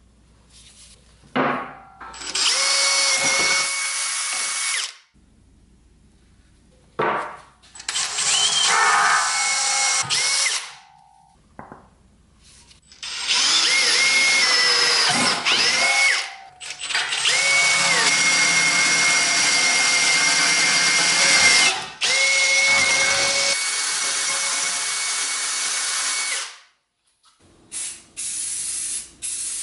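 Cordless drill boring holes through a steel plate with a twist bit, running in several bursts of a few seconds each with short pauses between, its motor whining steadily during each run. Near the end come a few short hisses from a spray can of primer.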